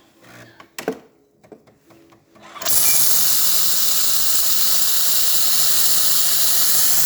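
Jura E8 espresso machine's milk system starting up: a few clicks and knocks, then a loud steady steam hiss from the fine-foam milk adapter begins suddenly a little under three seconds in. With this adapter the milk sprays out and does not froth at all.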